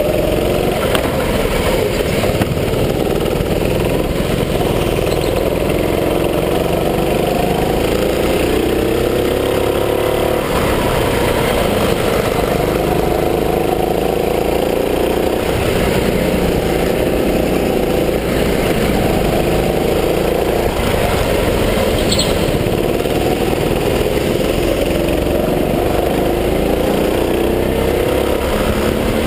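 Gas-powered go-kart engine running hard under racing load. Its pitch rises as the kart accelerates and drops off when it lifts for the corners, over and over. A brief high squeak comes about two-thirds of the way through.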